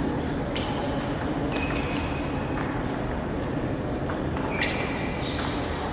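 A table tennis rally: the ball clicks sharply off the table and the two bats in quick alternation, about one hit every half second to second.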